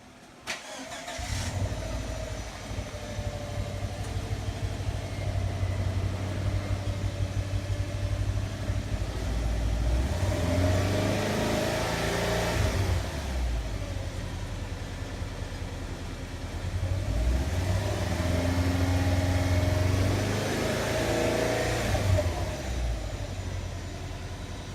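Subaru Legacy GT's turbocharged 2.5 flat-four running through a newly fitted aftermarket catback exhaust. The exhaust note swells and falls away twice, once in the middle and again near the end.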